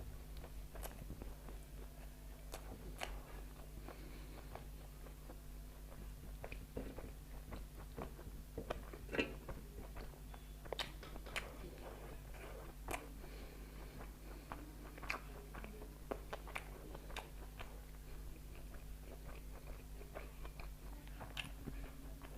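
A person chewing and biting food close to the microphone during a meal of momo and fried chicken with rice: scattered wet clicks and crisp crunches, the sharpest about nine seconds in. A faint steady electrical hum runs underneath.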